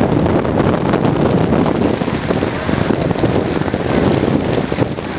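Steady wind buffeting the microphone aboard a moving boat, mixed with the boat's running and water noise.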